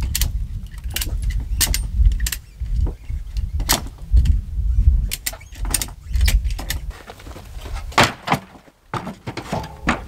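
Sawn pine boards knocking and clattering against each other as they are lifted and handled off a stack, about a dozen sharp knocks, the loudest about eight seconds in, over a low uneven rumble that fades after about seven seconds.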